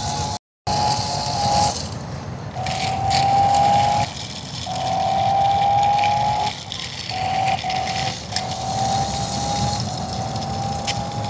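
RC drift car's motor whining in about six bursts of one to two seconds, the pitch creeping up slightly during each burst as the throttle is applied, over a steady hiss.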